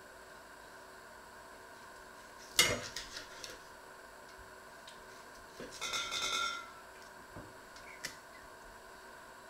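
Kitchen knife slicing through a sausage and knocking on a wooden cutting board. A sharp knock comes about two and a half seconds in, then a brief ringing clatter around six seconds and a lighter click near the end.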